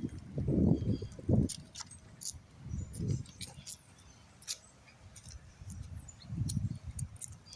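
Birds chirping in short, scattered high calls, over irregular low rumbles on the microphone that are loudest in the first second and a half.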